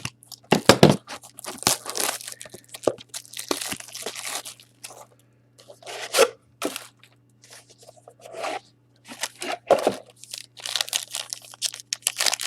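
Trading-card pack packaging being torn open and crinkled by hand, in irregular bursts of tearing and rustling.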